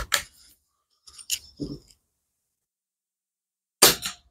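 SMK PR900W air rifle being readied, with sharp mechanical clicks from the bolt and single-shot pellet tray, then a single loud shot near the end.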